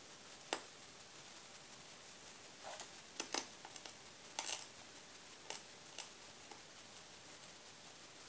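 Faint mouth sounds of someone chewing food: a handful of scattered soft clicks and short wet smacks over a steady background hiss.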